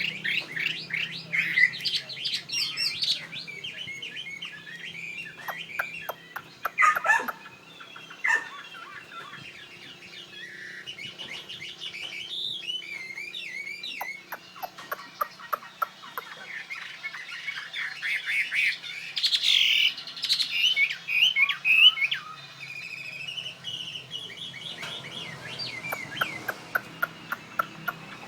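Chinese hwamei (Garrulax canorus) singing its loud, varied fighting song: fast strings of whistled phrases that break off briefly now and then, typical of a fighting bird in full song.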